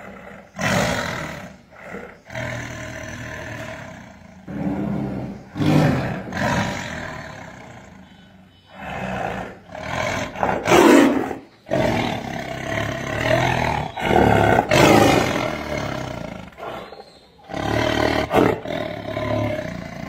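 Tiger roaring repeatedly: a string of loud calls, each a second or two long, with short gaps between them.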